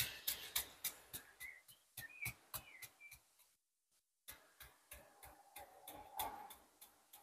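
Stiff-bristled churn brush beating fresh lime mortar into brick joints: a quick run of taps, about three or four a second, that compacts the mortar and pushes it back into the joints. The taps pause briefly about halfway through, then come back sparser and fainter.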